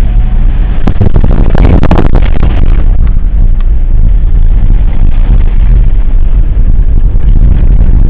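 Cabin noise of a four-wheel drive on a rough, bumpy dirt track: a loud, steady low rumble of engine and tyres, with a burst of knocks and rattles from the bumps between about one and three seconds in.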